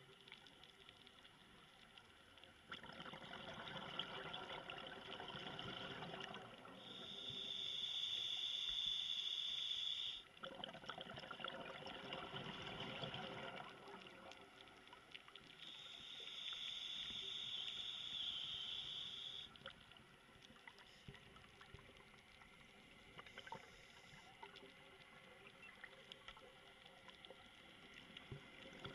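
Scuba diver breathing through a regulator underwater: a steady hissing draw on the regulator alternating with bubbly, crackling exhalations, two breath cycles in the first twenty seconds. After that it is quieter, with faint scattered clicks.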